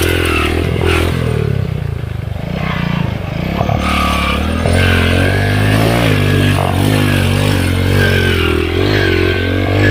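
Underbone motorcycle's small single-cylinder engine running under load while riding, revs rising and falling, with some clattering from the rough ground.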